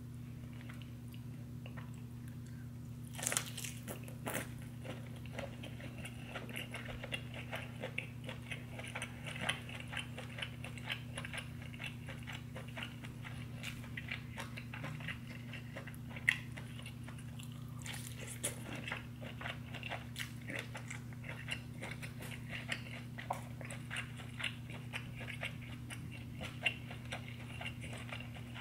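Close-miked eating of a buttery deshelled seafood boil: continuous chewing and wet mouth smacks, with bigger bites about three seconds in and again near eighteen seconds.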